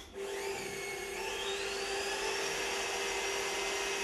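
FE magnetic drill's electric motor switched on, whining up to speed over the first second or two and then running steadily, spinning free with no cut being made.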